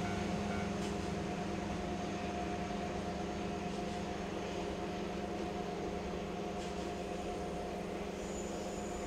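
JNR DD51 diesel-hydraulic locomotive's twin V12 diesel engines working at full power as it climbs toward a mountain pass, a steady drone heard from a distance that slowly fades.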